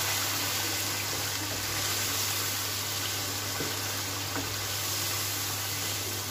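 Beef and spice masala frying in hot oil in a karahi, a steady sizzle, with a spatula stirring through it and a few light scrapes against the pan. A steady low hum runs underneath.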